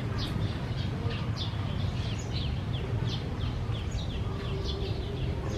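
Small birds chirping over and over, short high falling chirps two or three times a second, over a steady low rumble.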